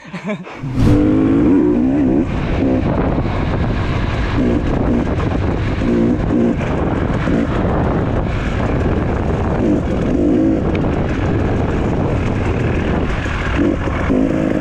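Trail dirt bike engine running as the bike rides a dirt track, its pitch rising and falling with the throttle, starting suddenly about a second in.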